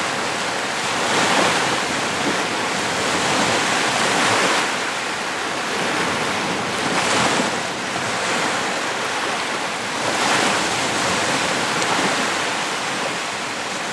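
Lake waves breaking and washing onto a beach: a steady rush of surf that swells with each wave, about every three seconds.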